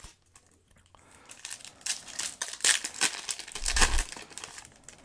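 Foil trading-card booster pack being torn open and crinkled, starting about a second in, with a dull bump about four seconds in.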